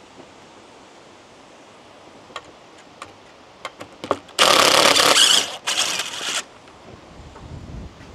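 Cordless drill-driver backing screws out of timber: two loud bursts of about a second each, a little after the middle, with a few light clicks and knocks just before them.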